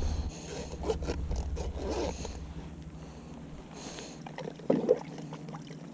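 Fishing tackle being handled by hand: a run of small clicks and rustles at first, a short hiss a little before the middle, and a brief louder knock or scrape near the end.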